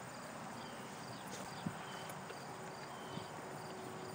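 Quiet outdoor background: a steady hiss with faint, repeated high insect chirps, and a couple of soft clicks from people chewing crunchy cookie bites.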